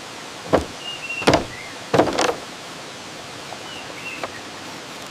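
Bamboo poles knocking sharply against each other four or five times in the first half, with two short high squeaks, as a lashed bamboo raft joint is worked and tested.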